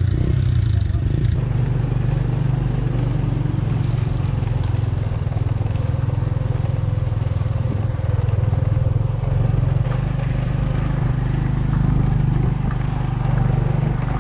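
Motorcycle engine running steadily while riding, a continuous low drone.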